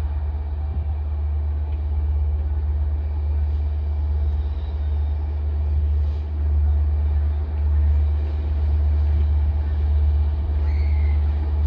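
Steady low rumble of trains at a station: an LIRR diesel locomotive drifting slowly in toward the platform, with a parked M7 electric railcar standing alongside. The rumble swells a little in the second half.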